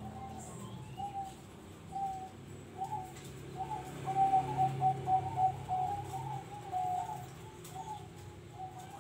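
Zebra doves (perkutut) cooing: short, soft notes spaced out at first, then a fast run of coos in the middle that is the loudest part, then spaced notes again.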